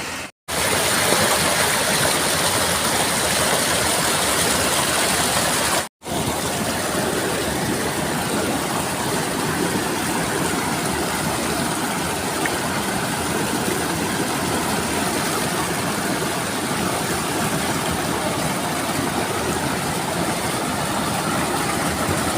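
Steady rushing river water, a constant noisy wash broken by two brief silent gaps near the start and about six seconds in.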